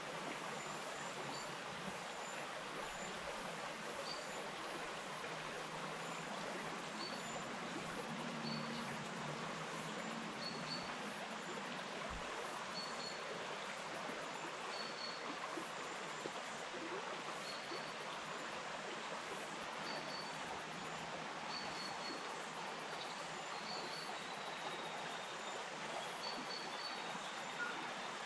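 A bush stream flowing steadily, with short high chirps recurring every second or two over the water.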